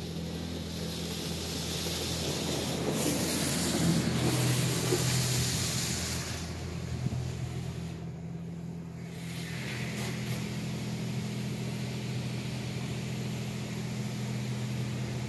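Car-wash water spray hissing against the car's body and glass, heard from inside the cabin, loudest a few seconds in and easing off after about eight seconds, over a steady low hum.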